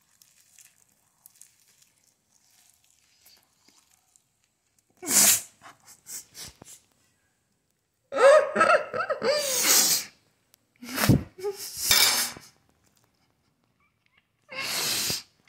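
A woman with a mouthful of lettuce coughing and spluttering, spitting the lettuce out: one sharp burst about five seconds in, a longer spluttering stretch with her voice in it a few seconds later, then three more short bursts near the end.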